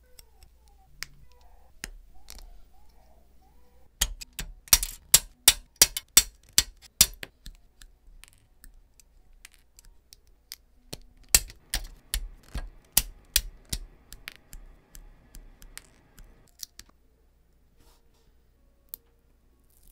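Small plastic model-kit parts clicking as they are handled and pressed together with fingers and metal tweezers. The clicks come in two runs of sharp clicks, about three a second: an even run a few seconds in and a looser one in the middle.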